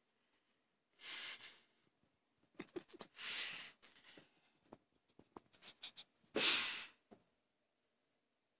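A cat scratching at and biting a fabric band on a pillow: light scratchy clicks and rubbing of claws and teeth on cloth, broken by three short hissing rushes of noise, the loudest about two-thirds of the way through.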